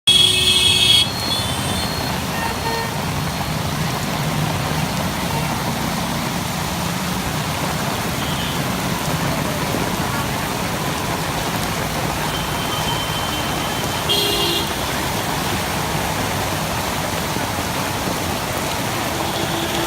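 Vehicle horn tooting briefly at the start and again about fourteen seconds in, over a steady rushing street noise of traffic and water.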